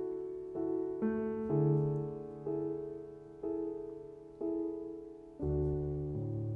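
Solo piano accompaniment playing the closing bars after the singing has ended: soft chords struck about once a second, each left to ring and fade. A low bass note comes in near the end.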